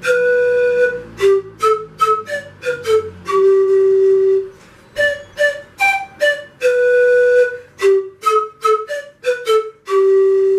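Siku (Andean bamboo panpipe) played solo: a simple melody of short separate notes, each phrase opening and closing on a long held note, the second one lower. The phrase is played twice.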